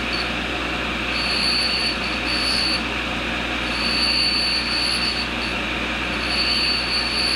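Tool and cutter grinder running steadily while a high-speed-steel single-lip countersink in a resharpening fixture is swept against the grinding wheel. A high thin grinding whine comes in on each pass, three times, over the steady hum of the machine.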